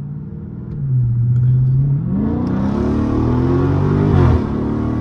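Dodge Charger 392 Scat Pack's 6.4-litre HEMI V8, heard from inside the cabin. It runs at a low steady pitch for about two seconds, then revs up under hard acceleration. The pitch climbs, drops briefly at an upshift about four seconds in, and climbs again.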